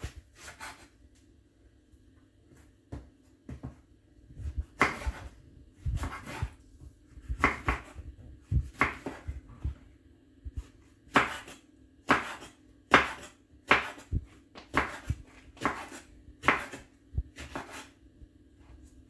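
Knife cutting vegetables on a cutting board: a run of sharp knocks, about one a second, that becomes louder a few seconds in.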